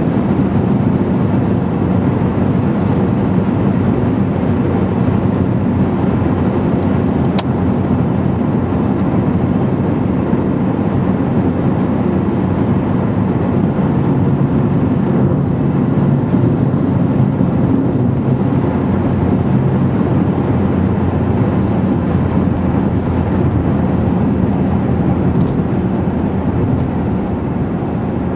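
Car driving at a steady pace, heard from inside the cabin: a constant blend of engine hum and tyre and road noise. A brief sharp click about seven seconds in.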